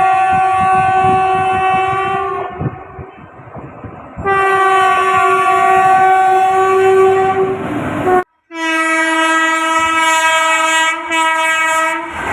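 Electric locomotive horn sounding three long steady blasts. The third is lower in pitch and starts after a sudden break. Between the first two, the wheels clack over the rail joints.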